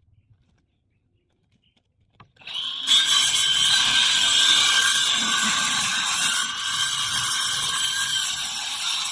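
Circular saw starting up about two and a half seconds in, then running steadily as it cuts through plywood.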